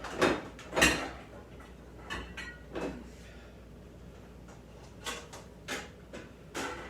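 Pots and pans clanking in a kitchen cupboard while a pan is searched out: a string of separate clunks and knocks, the two loudest within the first second.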